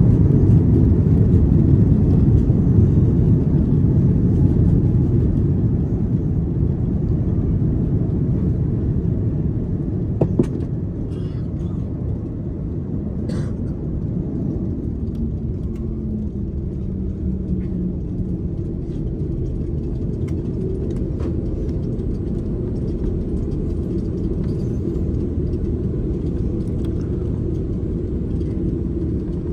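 Airbus A330-200 cabin rumble after touchdown. The loud, low rumble of the rollout fades over the first dozen seconds as the airliner slows, then settles into a steadier, quieter taxiing rumble, with a single click about ten seconds in.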